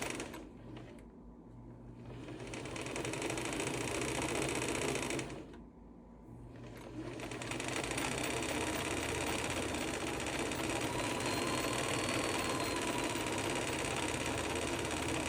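Kenmore Sears 158-series sewing machine motor running fast with the needle disengaged, winding a bobbin. It eases off twice in the first seven seconds, then runs steadily.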